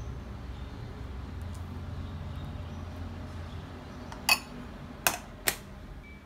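A metal spoon knocking against a ceramic bowl while paste is spooned into it: three sharp clinks in the second half, the last two close together, over a steady low hum.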